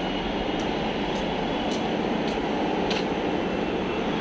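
Footsteps of someone walking on a paved walkway, a little under two steps a second, over a steady rushing background noise.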